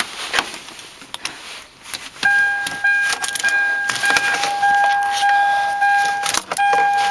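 Keys jangling and a few sharp clicks, then from about two seconds in a car's electronic warning chime sounds as a steady pitched tone, broken briefly near the end. The engine is not yet running.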